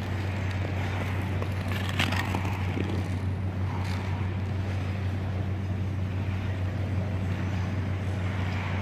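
Steady low hum and hiss of an indoor ice rink's background noise, with a single sharp knock about two seconds in.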